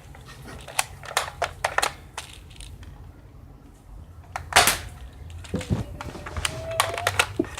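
Airsoft M4 rifle firing single shots: a string of sharp, irregularly spaced clicks and snaps, the loudest about four and a half seconds in.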